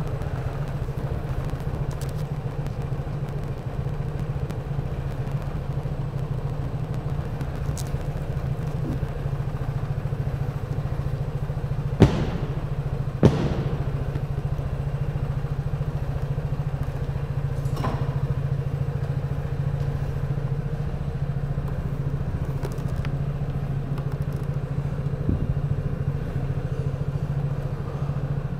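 Vespa GTS 300's single-cylinder four-stroke engine idling steadily in an underground parking garage. Two sharp knocks come about a second apart near the middle.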